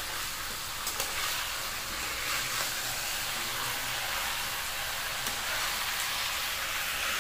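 Desi chicken pieces and potatoes sizzling steadily as they fry in oil in a steel kadai, stirred with a metal spatula that clicks against the pan a few times.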